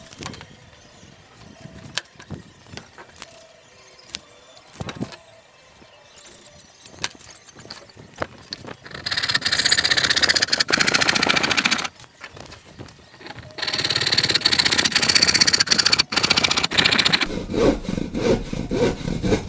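Hand saw cutting through marine plywood in quick back-and-forth strokes: two runs of a few seconds each in the second half, then rougher strokes near the end as the cut finishes. Before the sawing, only light scattered taps and clicks.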